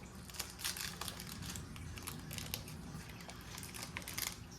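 Plastic card sleeve and holder being handled: irregular small clicks and light crinkling, a few clicks each second.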